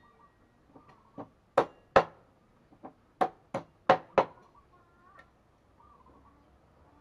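Heavy meat cleaver chopping through raw poultry and bone on a thick round wooden chopping block: about eight sharp chops between one and four and a half seconds in, in two quick runs.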